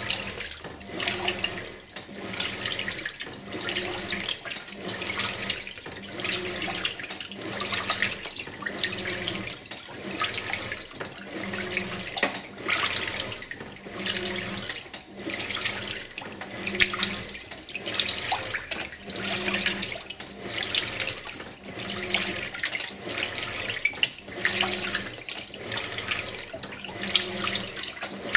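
Simpson Esprit 550 top-load washer agitating its load, water sloshing and the motor humming in strokes that swell and fade about once a second.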